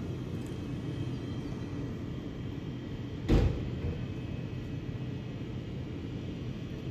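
Steady low rumble of background noise with a single loud thump about three seconds in.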